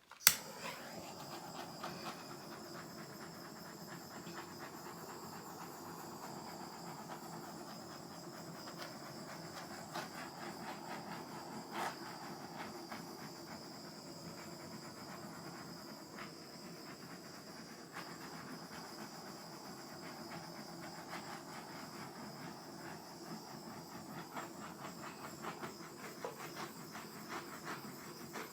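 Handheld torch flame hissing steadily as it is passed over a wet acrylic paint pour to bring up cells, with a sharp click right at the start.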